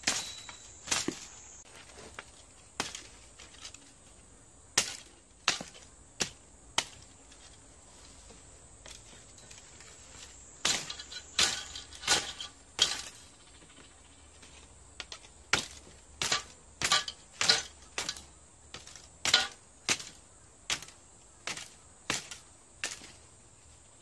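Hand sickle chopping and trimming a bamboo cane: a long series of sharp, crisp strikes. They come unevenly, with a lull of a few seconds about a third of the way in, then faster runs of blows about one or two a second.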